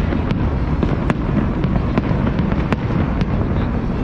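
Aerial fireworks display: a continuous low rumble of shell bursts with several sharp cracks, roughly one every second.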